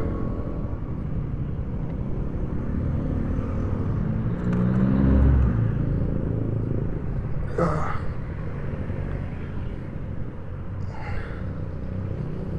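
Yamaha SZ-R motorcycle's single-cylinder engine running while riding, rising in pitch as it revs up about four to five seconds in.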